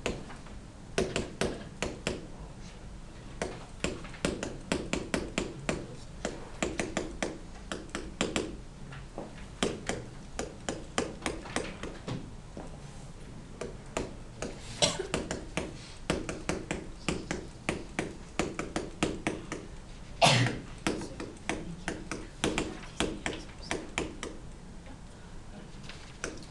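Stylus tapping and clicking on an interactive whiteboard while equations are handwritten: quick runs of light clicks, several a second, with short pauses between them. One louder thump about twenty seconds in.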